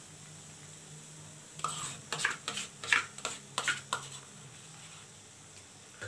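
Hot oil in a wok popping and crackling around lentil dumplings (bori) as they fry: a cluster of about eight sharp pops in the middle, over a faint low hum.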